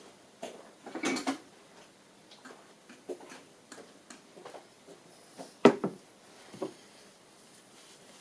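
Hands handling the freshly blued steel post while oiling it: scattered small knocks, clicks and rustles, with a brief rustle about a second in and one sharper knock a little past halfway.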